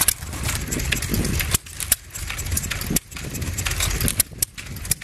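Small antique stationary engine with twin spoked flywheels running, with a steady low rumble and sharp metallic clicks at uneven intervals.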